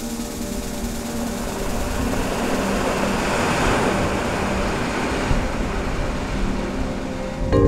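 Roar of ocean surf breaking where lava pours into the sea, swelling to its fullest about halfway through and easing after.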